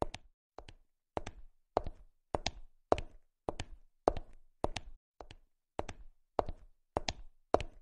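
A steady series of sharp taps or knocks, roughly two a second, some in quick pairs, with silence between them.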